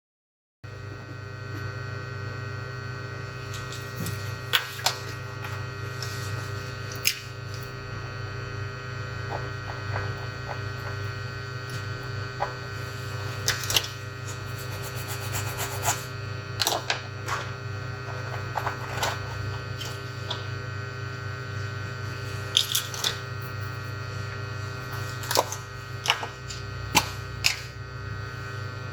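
Steady low electrical hum with scattered light clicks and taps of tools on a workbench.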